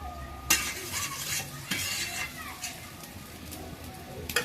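A spatula stirring chicken curry in a cooking pot, knocking and scraping against the pot. There is a sharp clank about half a second in and another knock near the end.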